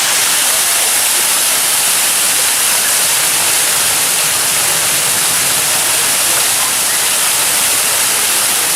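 Steady, loud rushing hiss that is strongest in the high end and never pauses or changes.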